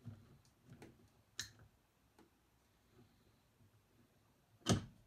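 Scattered light clicks and taps of metal engine parts and bolts being handled while fitting a starter gear and one-way bearing to an ATV flywheel, with one sharp clunk near the end.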